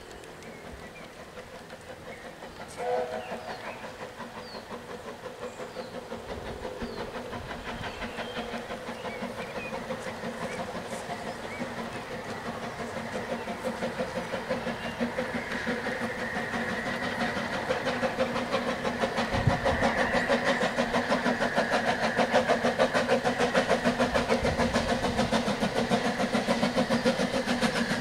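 Double Fairlie steam locomotive approaching, its rhythmic exhaust beats growing steadily louder. One short whistle toot sounds about three seconds in.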